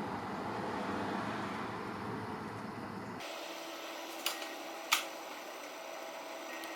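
Utility knife drawn along a thick rubber horse stall mat to score a cutting line: a steady low scraping hiss for about three seconds that then thins out, followed by two sharp clicks about a second and a half later.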